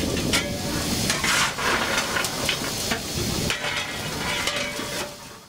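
A steam locomotive fireman's coal shovel scraping and clanking as coal is scooped and thrown into the firebox, in a run of irregular scrapes and knocks over a steady rushing noise from the cab.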